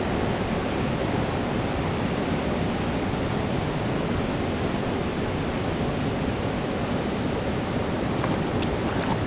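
Waterfall: falling water making a steady, unbroken rush.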